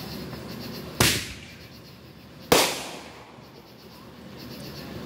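Two fireworks going off about a second and a half apart, each a sharp loud bang with a short echoing fade.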